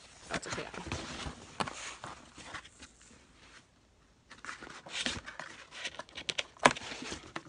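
A cardboard subscription box being opened and its contents handled: rustling of cardboard and paper with scattered taps and scrapes, a short lull about halfway, and a sharp snap near the end.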